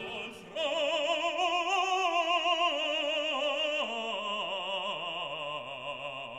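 Background opera music: a singer holds long notes with wide vibrato, starting about half a second in, and the line steps down in pitch over the following seconds.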